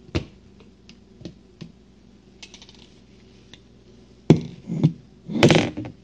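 Light clicks and taps, then a louder knock about four seconds in and a short clatter near the end: an electric food chopper being handled with its motor off.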